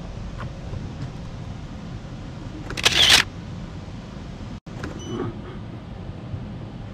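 A camera shutter firing in a quick burst of clicks, about three seconds in, over a steady low room hum.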